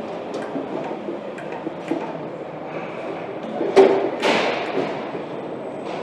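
Battery assembly-line workstation noise: steady machine clatter with scattered light clicks of metal tooling, a loud clunk about four seconds in, then a rushing hiss that fades over about a second.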